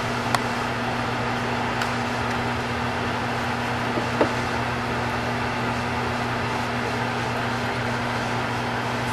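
A steady mechanical hum with a hiss, with a few light clicks: two near the start and one about four seconds in.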